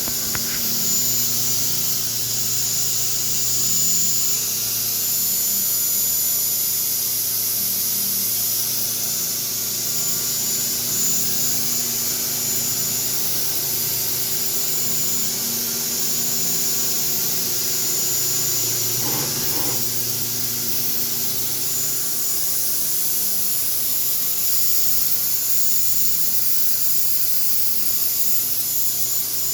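CNC milling machine running steadily, its spindle giving a high, even whine over a constant hiss and a low hum. A short extra noise sounds around two-thirds of the way through.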